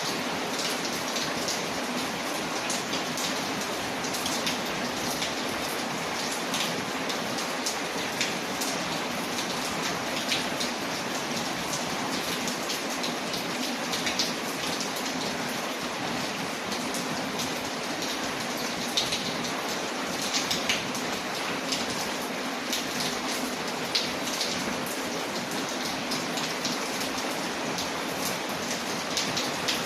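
Steady rain falling on a window, mixed with the scattered sharp crackles of a wood fire burning in a fireplace.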